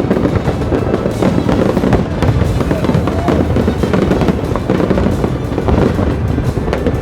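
Fireworks bursting in rapid, dense succession with crackling, over music playing loudly.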